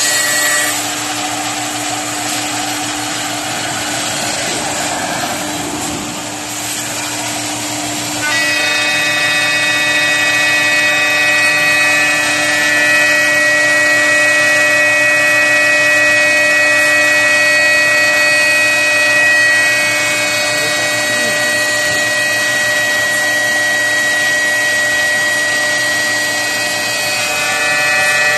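Six-axis CNC door processing center running as it machines a wooden door panel: a steady spindle whine over machine and extraction noise. About eight seconds in, a stronger, higher whine sets in and holds.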